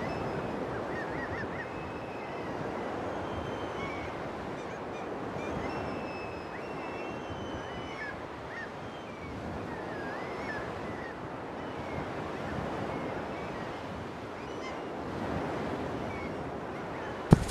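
Outdoor ambience: steady wind rushing on the microphone, with small birds chirping on and off. A single sharp click just before the end.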